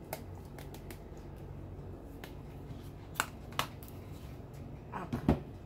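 A few sharp clicks and squirts from a plastic ketchup squeeze bottle being squeezed over chicken drumsticks in an aluminium foil pan, ending with a louder click and thump a little after five seconds in, over a low steady hum.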